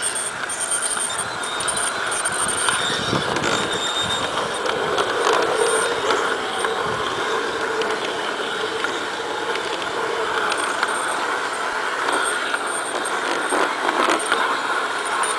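LGB large-scale model streetcar running along garden railway track: the steady whir of its small electric motor and gears with the running noise of its wheels on the rails.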